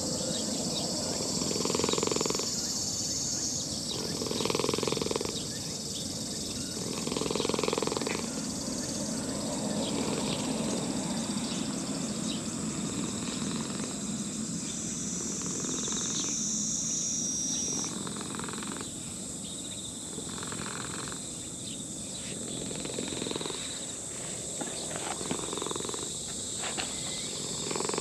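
An elderly orange-and-white cat purring steadily while it is scratched under the chin and stroked, the purr pulsing louder every two to three seconds.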